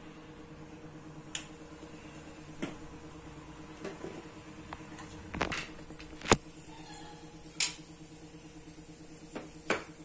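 Ground whole spices and bay leaves frying in hot oil in a non-stick frying pan, giving about eight sharp pops and clicks at irregular intervals over a steady low hum.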